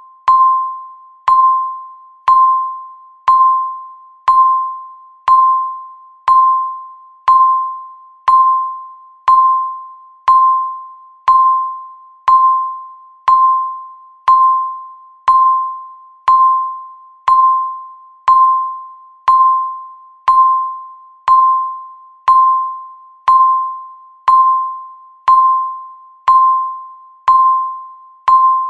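Electronic countdown timer beeping once every second: a single high beep that starts sharply and fades out, repeated evenly.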